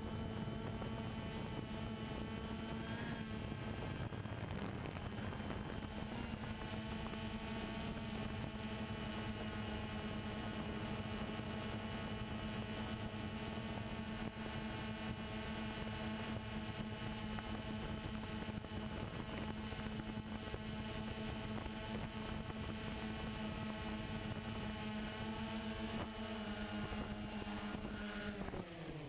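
Quadcopter drone's electric motors and propellers buzzing at a steady pitch, heard from the drone's own camera, then winding down with a sharply falling pitch near the end as the drone sets down and its motors stop.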